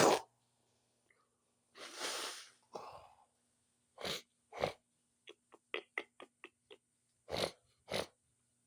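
A person's sneeze dies away right at the start, followed by nose sniffing. There are a few longer sniffs and breaths, then a quick run of about eight short sniffs in the middle, and two more sniffs near the end.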